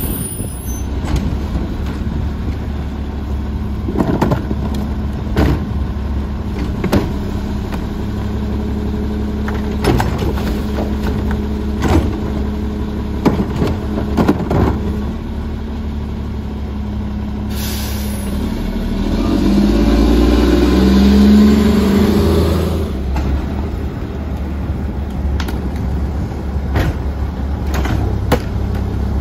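Front-loader garbage truck's diesel engine idling, with sharp knocks and bangs of a plastic wheeled cart being handled and tipped into the carry can. About two-thirds of the way in there is a hiss and the engine revs up for a few seconds with a rising whine, typical of the hydraulics being run, before settling back to idle with more knocks.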